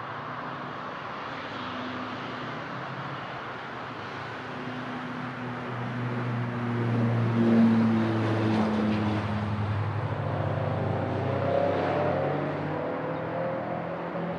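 Small piston-engine propeller airplane passing by. Its engine and propeller note builds to its loudest about halfway through, then drops in pitch as it moves away.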